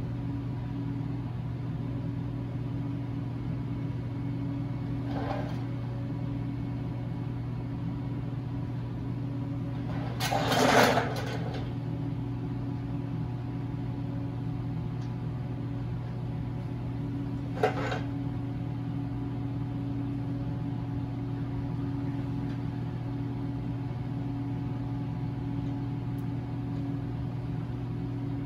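Steady low machine hum in the shop, with a brief louder rustling noise about ten seconds in and a single sharp click a few seconds later.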